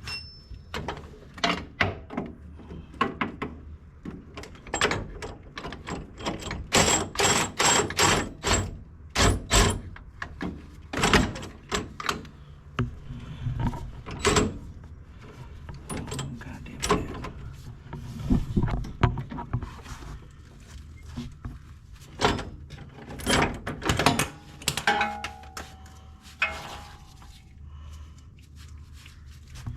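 Irregular metal knocks, clanks and taps of hand tools and rear suspension parts being worked on under a car, some in quick runs, with a brief metallic ring about three-quarters of the way through.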